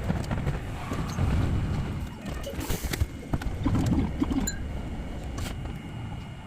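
Hankai tram's running noise sped up about ten times: a rapid, garbled rattle of many quick clicks over a low rumble, fading toward the end.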